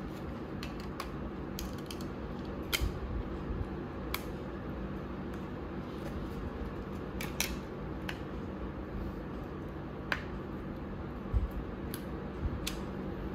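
Small plastic and metal clicks and snaps from handling a Samsung Galaxy Z Flip folding phone and fitting its clear cover, about eight spread out, over a steady low room hum.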